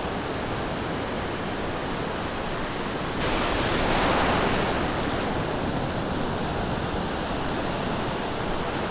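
Surf washing up a sandy beach: a steady rush of breaking waves, swelling louder as a wave washes in about three seconds in and easing off a couple of seconds later.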